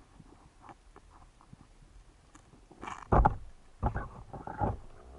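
Muffled underwater knocks and thuds: a few faint clicks, then two bursts of heavy bumps a little past halfway, from a diver's hand and camera housing striking seabed rocks while grabbing at an octopus.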